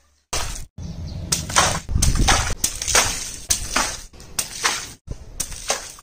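Water-filled rubber balloon handled on a wet tile floor: a string of short wet slaps and sloshes, about a dozen in quick succession, broken by brief silent gaps.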